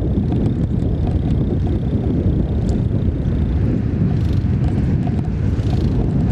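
Wind buffeting a moving camera's microphone: a steady, loud low rumble.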